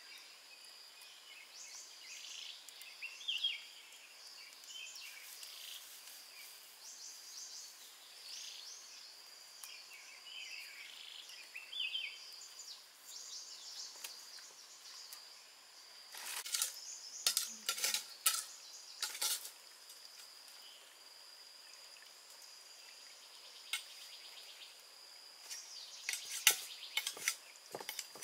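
Birds chirping over a steady, high-pitched insect drone, with two clusters of sharp clicks and knocks, one around the middle and one near the end.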